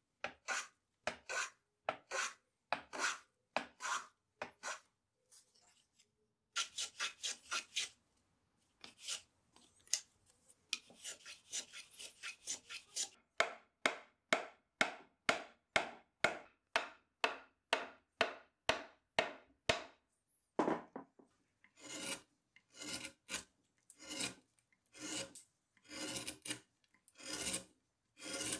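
Hand-held edge tools cutting wood in short repeated strokes, one to three a second, each a dry scrape, with a pause about five seconds in. Near the end, a carving gouge scoops curled chips out of the wooden stool seat in steady strokes.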